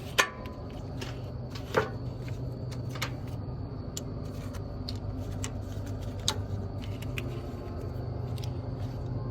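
Battery cables and their ring terminals being handled and set onto truck battery posts: a handful of sharp clicks and clinks, the loudest just after the start, over a steady low hum.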